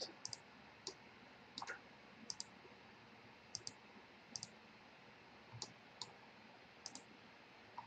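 Computer mouse clicking, a short click every second or so, many of them in quick pairs, as edges and faces are selected.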